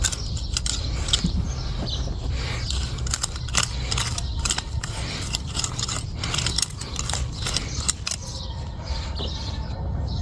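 Irregular clicks and scrapes over a steady low rumble.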